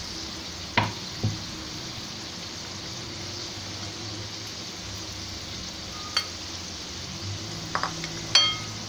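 Lobongo lotika pastries shallow-frying in a little oil in a steel kadai: a steady sizzle. A few light knocks come near the start and near the end, some of them ringing like metal.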